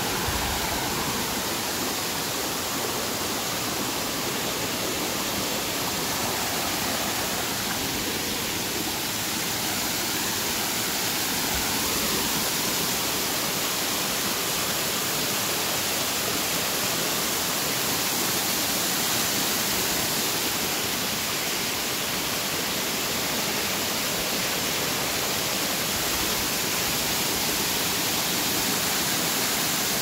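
A low-flow waterfall splashing down over rock ledges: a steady, even rush of falling water.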